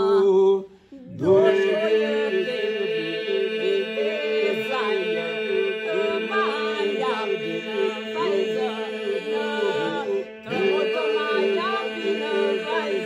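Albanian polyphonic folk song sung unaccompanied by a small group of voices: a steady held drone under a moving lead melody. The singing breaks off briefly about a second in and again near ten seconds.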